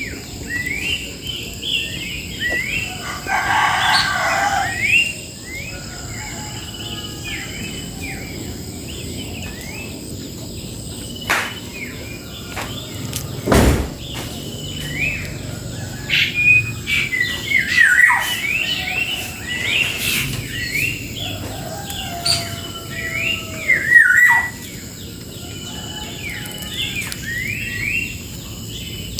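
Songbirds chirping and calling over and over in short rising and falling notes, with a louder, harsher call a few seconds in and a cluster of louder calls in the second half. A single sharp knock about 14 seconds in.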